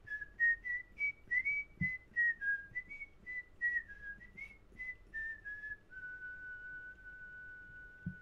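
A person whistling a bright little tune: a run of quick notes hopping up and down, then one long held note for the last couple of seconds.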